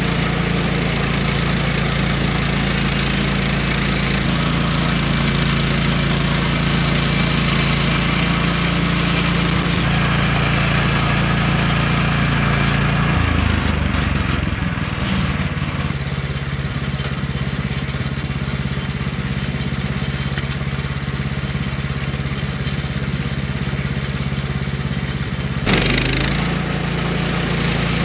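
The petrol engine of a Woodlander HM126 bandsaw mill running steadily while the band blade cuts through a log. The sound changes about halfway through, and there is a short knock near the end.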